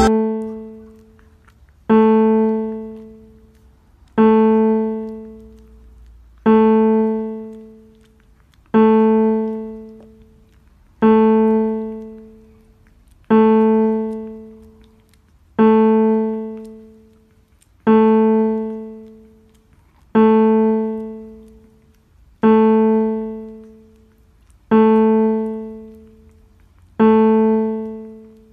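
Background music: a single piano-like keyboard note struck over and over at the same pitch, about once every two seconds, each left to ring and fade before the next.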